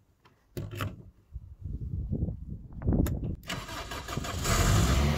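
Engine started with an ignition key: a click or two from the key, then the starter cranks unevenly for about two seconds before the engine catches about three and a half seconds in, revs up briefly and settles into a steady idle.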